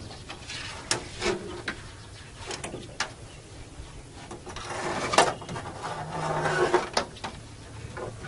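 Trotline being pulled in hand over hand over the side of a small boat: scattered knocks and clicks with rubbing and scraping of line and hands against the boat, busiest about five to seven seconds in.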